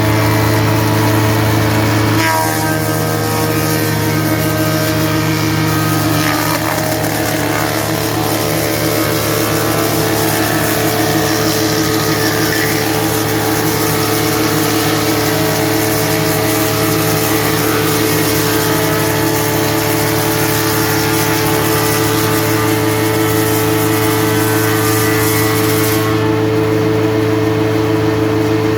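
S-25-4A four-sided planer-moulder running, its motors giving a steady multi-tone hum while the cutter heads plane a 170×170 mm timber beam. The cutting noise on top of the hum thickens about two seconds in and drops away suddenly near the end.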